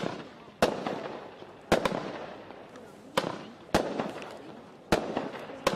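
Magnum Series Seattle Sensation firework shooting shot after shot: about seven sharp bangs, irregularly spaced half a second to a second and a half apart, each one trailing off before the next.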